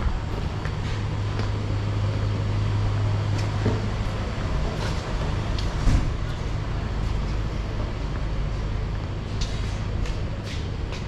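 A motor vehicle driving, heard from inside: a steady low engine drone over road noise, with scattered small knocks and rattles. There is a thump about six seconds in, after which the drone fades back.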